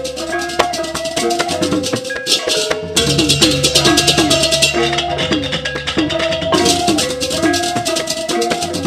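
Balinese gong kebyar gamelan playing a bebarongan piece: a metallophone melody over fast, shimmering percussion strokes, with the low gong and drum parts filling out about three seconds in.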